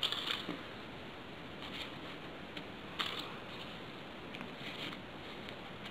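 Folded paper origami modules rustling and crackling faintly as they are slid onto a ring of other modules. There are a few short crinkles, the sharpest right at the start and about three seconds in.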